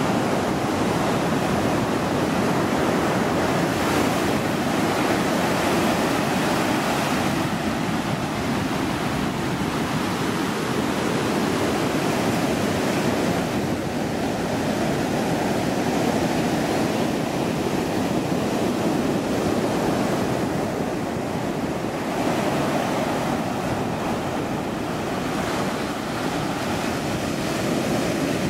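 Surf washing in the shallows: a steady, loud rush of breaking waves that swells and eases slowly as each wave comes in and drains back.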